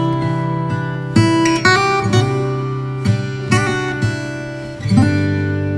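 Background music: strummed acoustic guitar, with the chords changing about every second.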